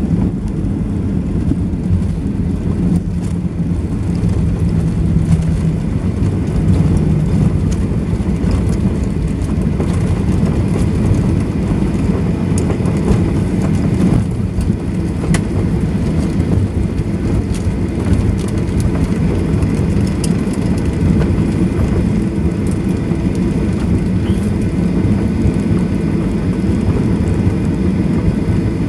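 Cabin noise of a Boeing 737-800 rolling out on the runway after touchdown: a loud, steady, low rumble of tyres and the CFM56 engines as the jet slows.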